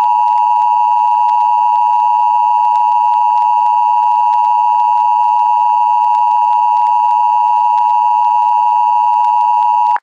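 Emergency Alert System attention signal: a loud, steady two-tone beep (the 853 Hz and 960 Hz pair) held without a break, the tone that precedes the spoken emergency message.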